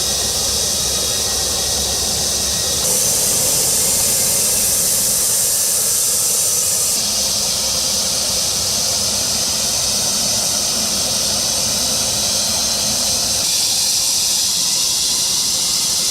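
Jet engines of an amphibious firefighting aircraft running with a loud, steady, high-pitched hiss over a lower rumble. The sound steps abruptly to a different balance about three seconds in, again at about seven seconds, and near the end.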